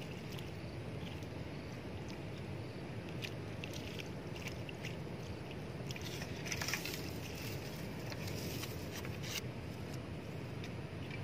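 Wind buffeting the microphone in the open, a steady low rumble. Scattered faint clicks sound over it, mostly between about six and nine seconds in.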